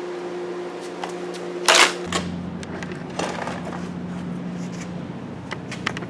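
Plastic door-panel clips and trim being worked loose on a 1998 Chevy GMT-400 truck door: a short loud scrape-like burst about two seconds in, then a few light clicks and snaps, over a steady background hum that deepens about two seconds in.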